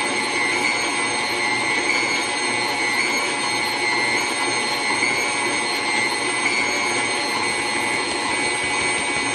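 KitchenAid stand mixer running steadily with its paddle attachment, whipping cake batter: a constant motor whine.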